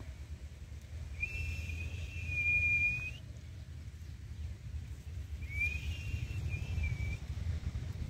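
Two long, steady whistled notes: the first comes about a second in and lasts about two seconds, and a shorter one follows a few seconds later. A low rumble runs under them throughout.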